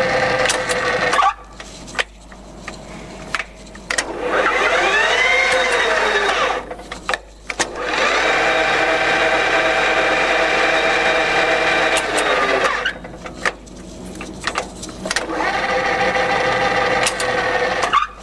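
Colchester Student centre lathe's geared headstock running with a steady whine, stopped and restarted in a different gear about three times, with the pitch of the whine changing from run to run. Sharp clicks of the gear levers fall in the quieter gaps between runs. The gears sound smooth and healthy.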